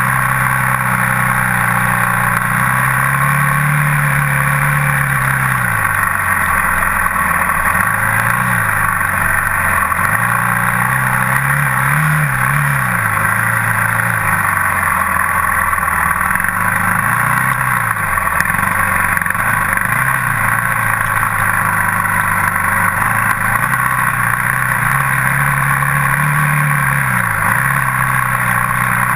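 Dirt bike engine running under way on a dirt trail, its pitch climbing and dropping again and again as the rider works the throttle and shifts, over a steady hiss.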